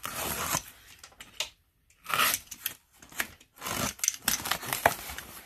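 Yellow utility knife blade slicing through packing tape on a small cardboard box, in a few short scraping strokes with pauses between, mixed with the rub of hands and cardboard.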